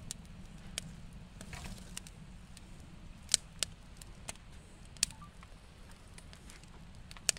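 Split-wood campfire crackling in a metal fire pit: scattered sharp pops, about one a second, the loudest a little over three seconds in and at about five seconds, over a low steady rumble.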